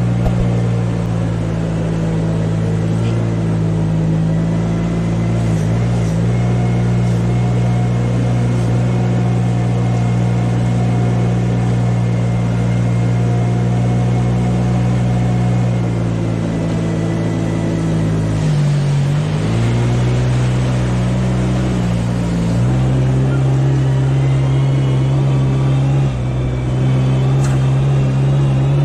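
A machine engine running steadily with a low hum. About two-thirds of the way in, its pitch dips briefly and then settles again.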